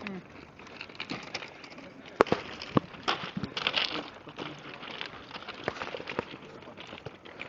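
Footsteps crunching on the loose stone ballast of a railway track: a string of irregular crunches, with a sharp click a little over two seconds in.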